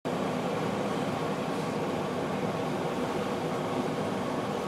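Steady hum and hiss of a vehicle moving at low speed, with no distinct knocks or other events.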